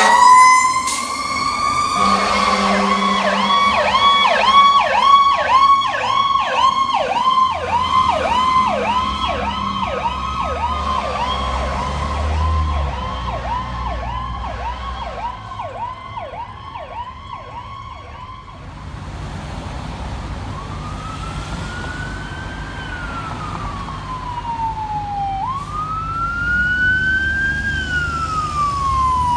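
Fire truck electronic sirens: a fast yelp warbling about twice a second for most of the first eighteen seconds. After an abrupt change, a slow wail rises and falls over several seconds.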